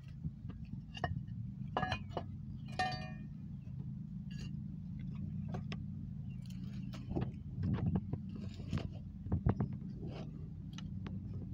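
A steady low mechanical hum under scattered clicks and rustles from the phone being handled and from leaf litter and debris being moved by hand. A brief ringing, jingling sound comes about three seconds in.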